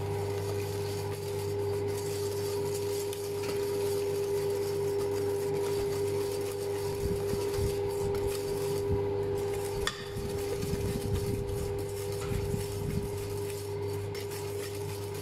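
Wire whisk scraping and clinking against a stainless steel bowl as eggs and sugar are whisked by hand over a bain-marie to dissolve the sugar, with a sharp clink about ten seconds in. A steady hum runs underneath.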